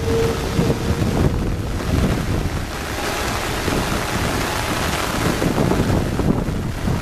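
Airbus A330's jet engines at takeoff power on the takeoff roll, a steady rushing noise mixed with heavy rain and wind buffeting the microphone. A steady tone in the noise drops away about a second in.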